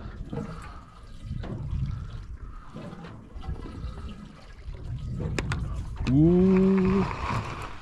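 Water sloshing and lapping against the side of a fishing boat, with a few sharp ticks about five seconds in. Just after, a loud pitched tone rises and then holds for about a second; it is the loudest sound.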